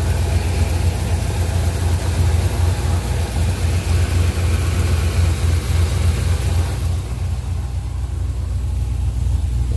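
1981 Chevrolet C10 Silverado pickup's engine idling steadily, with a strong even low hum; the higher sounds thin out about seven seconds in.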